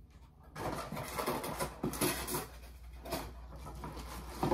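Rustling, crackling and scraping of packaging being handled and pulled out of a box. The noise is irregular and starts about half a second in.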